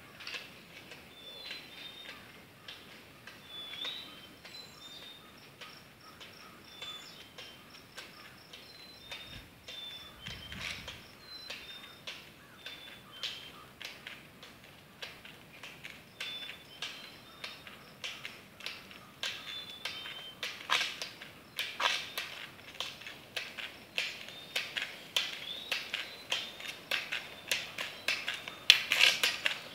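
Roller skier's pole tips clicking on asphalt in a steady rhythm, growing louder near the end as the skier approaches. A bird repeats short high chirps in the background.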